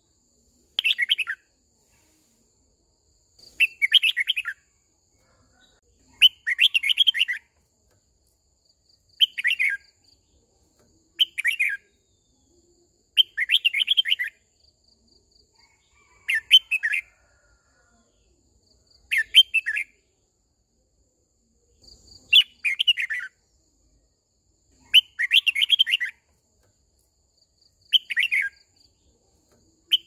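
Red-whiskered bulbul singing short, bright, warbling song phrases, each about a second long, repeated every two to three seconds with quiet gaps between. This is the flock-calling song of a decoy bulbul.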